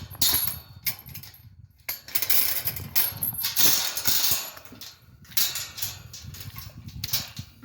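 Irregular rustling and crackling in uneven bursts over a low, fluttering rumble, typical of close handling noise on the microphone.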